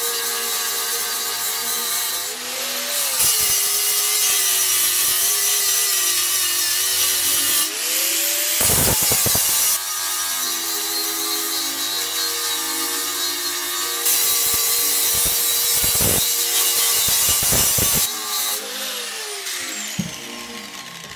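Handheld angle grinder cutting into a steel bar clamped in a vise, the disc grinding through the metal in several long loud passes with lighter spells between them, then easing off and stopping near the end.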